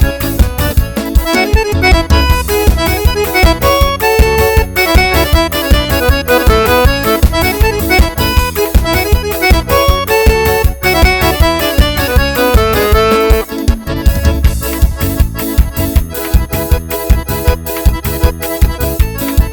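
Instrumental forró arrasta-pé music for São João: a fast, even beat with an accordion or keyboard playing the melody.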